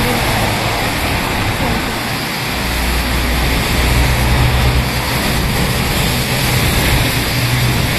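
Steady city street traffic noise, with a low engine hum joining about two and a half seconds in.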